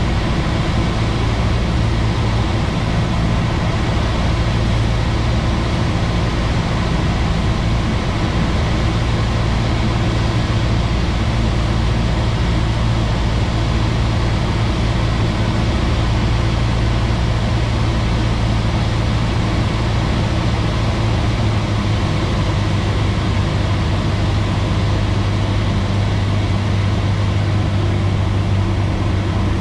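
Cessna 172's four-cylinder piston engine and propeller droning steadily in flight, heard inside the cabin. The engine note drops slightly about two-thirds of the way through.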